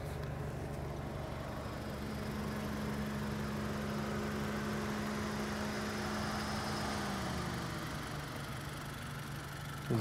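Honda Civic's engine running as the car moves slowly, a steady hum whose main tone drops lower about seven seconds in.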